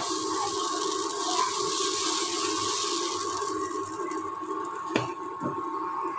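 Dosa batter hissing and scraping as the back of a steel ladle spreads it in circles on a hot non-stick pan. The hiss fades after about four seconds, and a light knock follows about a second later, over a steady hum and high tone.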